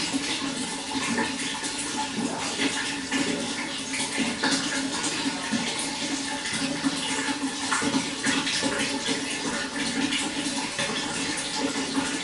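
Running water flowing steadily, a constant rush with many small splashes and gurgles throughout.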